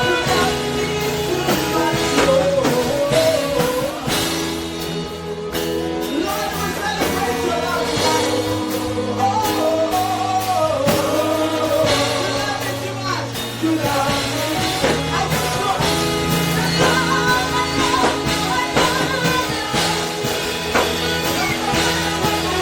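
Live gospel worship music: a band with keyboard chords, guitar and drum kit playing a slow praise song, with a singer's wordless melodic line over it.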